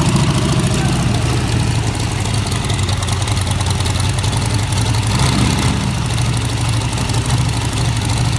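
Aircraft engine of a Plymouth pickup hot rod idling steadily after start-up, with an even low-pitched running note.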